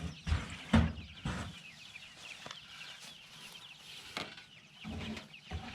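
Chickens clucking, with a few knocks, the loudest just under a second in, as the chicken tractor's lid is lowered and set down.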